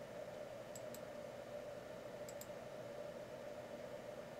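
Faint clicking at the computer: two quick pairs of clicks, about a second in and again near halfway, over a steady faint hum of room noise.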